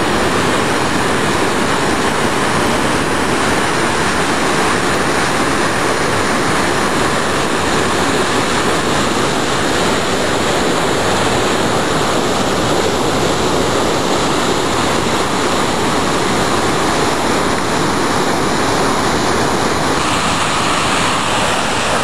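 Steady rushing of a whitewater waterfall pouring over granite, loud and unbroken.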